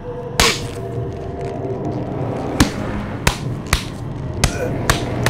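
About six sharp knocks at irregular intervals, the loudest about half a second in and the rest coming faster toward the end, over a low steady drone.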